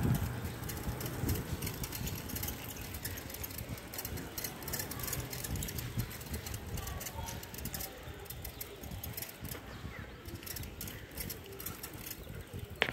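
Riding noise from a moving bicycle: wind rumbling on the microphone, with frequent light clicks and rattles from the bike.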